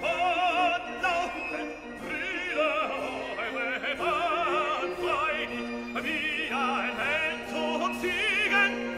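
Operatic singing with orchestral accompaniment: a classically trained voice holds long notes with a wide vibrato over sustained lower instrumental parts.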